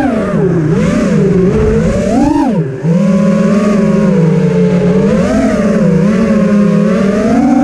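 FPV racing quadcopter's brushless motors and propellers whining, the pitch swinging up and down with the throttle. The whine drops briefly about two and a half seconds in and starts climbing near the end as the throttle is punched.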